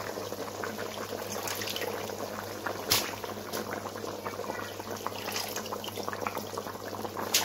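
Mutton stock boiling hard in a pot on high heat: steady bubbling, with a sharp knock about three seconds in and another near the end.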